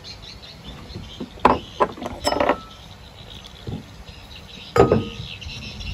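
Dishes and tableware clinking and knocking as they are handled: a few sharp knocks about a second and a half in and around two and a half seconds, then one more near five seconds, some ringing briefly.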